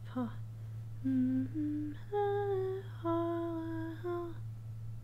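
A woman humming a slow phrase of a folk-song melody: about five long held notes, starting about a second in and ending just after four seconds.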